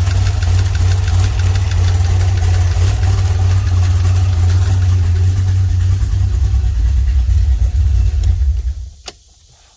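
1981 DeLorean DMC-12's PRV V6 engine idling with a slight tick, which sounds to the owner like it is in the valve train. Near the end the engine stops, followed by a single sharp click.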